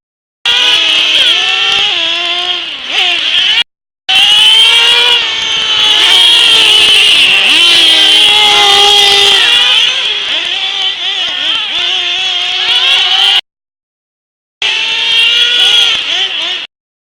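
Several radio-controlled off-road racing cars running together, their motors rising and falling in pitch as they accelerate and brake around the track. The sound cuts out abruptly a few times, about three and a half seconds in, near the middle and near the end.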